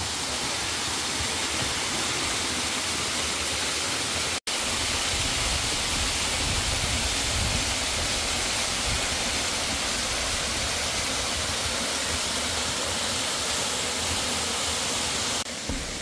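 Waterfall cascading down a rock face into a rocky mountain stream: a steady rush of falling and splashing water. It cuts out for an instant about four seconds in.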